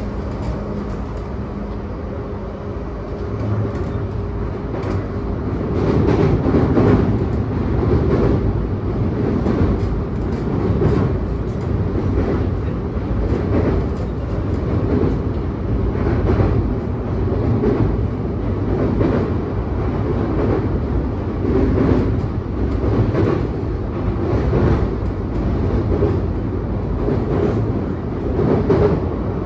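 Sobu Rapid Line commuter train running at speed, heard from inside the car: a steady rumble of wheels on rail, with repeated clacks over the rail joints. It grows louder about five seconds in, and the train crosses a steel truss bridge.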